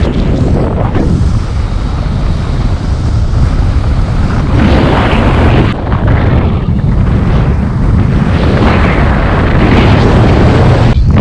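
Heavy wind buffeting a GoPro's microphone during paraglider flight: a loud, low rumbling rush that swells and eases, with a brief dip about six seconds in.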